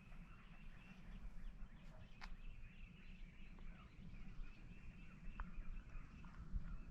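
Faint morning outdoor ambience: distant birds chirping and singing over a steady low rumble, with a few short, sharp chirps.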